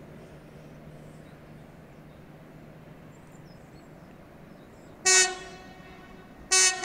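Train horn from an approaching train: one short blast about five seconds in, then a second blast starting near the end, over a faint steady background hum.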